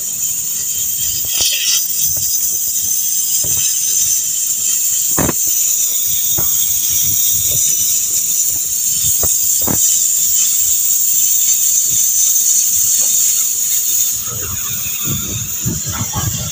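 Oxy-fuel cutting torch hissing steadily as it cuts through a steel pipe pile, with scattered sharp pops and crackles. The hiss eases slightly near the end.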